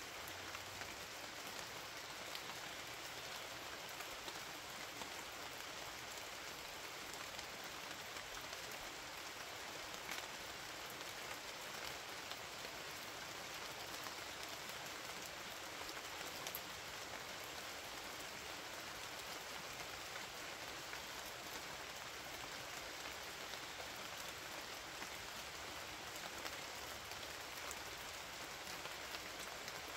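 Steady rain falling, with many small scattered drop impacts through an even hiss; no thunder.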